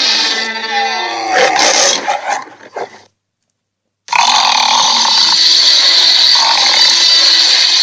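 Dragon creature sound effects. A growl whose pitch slides downward fades out about three seconds in. After a second of dead silence, a harsh, noisy roar starts abruptly and holds steady.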